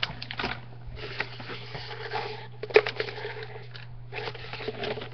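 Paper and packaging rustling and crinkling as they are handled, in several bursts with a sharp click near the middle, over a steady low hum.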